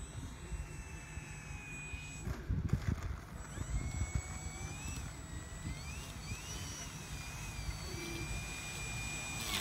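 Small electric RC airplane's motor and propeller whining, the pitch rising and falling with the throttle as it lands and taxis over grass. A few knocks about two and a half seconds in as it touches down. Wind rumbles on the microphone throughout.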